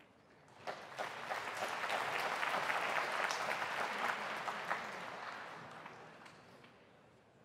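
Snooker audience applauding: clapping starts under a second in, builds to a peak over the next couple of seconds, then dies away gradually.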